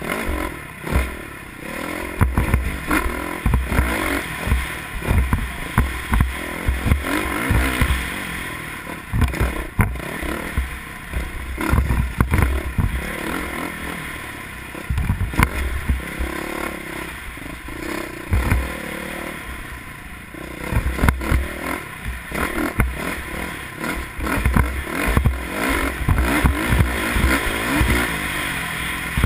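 Off-road motorcycle engine running and revving unevenly as the bike rides a rough dirt trail, with irregular low thumps of wind buffeting the helmet-mounted microphone and clatter from the bike over bumps.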